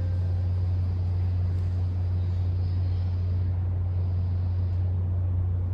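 A steady low hum with a faint hiss under it. The last note of a two-tone intercom door chime dies away at the very start.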